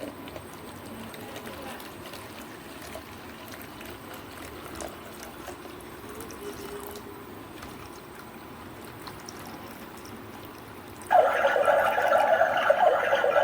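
Water running steadily into a tank as it fills, a soft, even pouring. About eleven seconds in, a much louder, higher sound cuts in suddenly.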